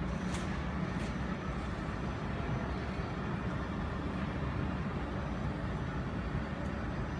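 Steady low hum and rumble of running machinery, with a couple of faint clicks in the first second.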